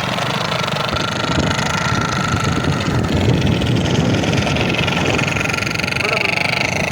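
Motorcycle engine running with a toy pipi horn fitted into its silencer, the exhaust blowing through it to give a steady horn-like tone over the engine rumble.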